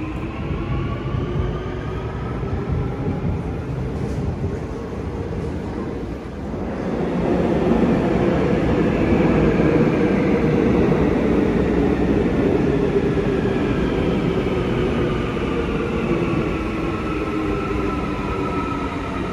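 Seoul Line 2 electric subway trains. At first the motors whine falling in pitch as a train slows into the station. From about seven seconds a louder rumble of a train on the rails sets in, and near the end its whine climbs in pitch as it picks up speed.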